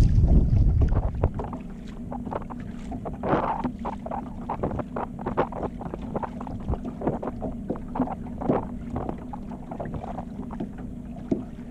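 Irregular clicks and rattles of a fishing reel and tackle as a small fish is reeled in and unhooked, over a steady low boat-motor hum. Wind buffets the microphone for about the first second.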